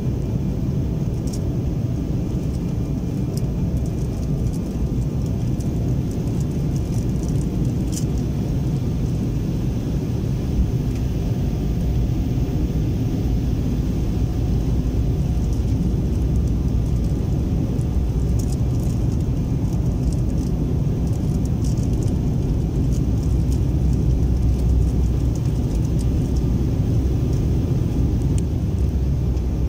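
Steady low rumble of engine and airflow noise inside a jet airliner's cabin on its approach to landing, growing a little louder in the second half.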